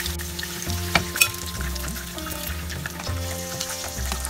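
Hash brown patties of grated potato, cheese and egg shallow-frying in vegetable oil in a non-stick pan over medium-low heat, the oil sizzling steadily, with two sharp ticks about a second in. Background music with a steady low beat plays underneath.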